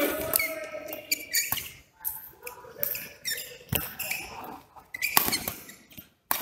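Badminton doubles rally: about five sharp racket-on-shuttlecock hits, roughly a second or more apart, with court shoes squeaking on the court mat between them.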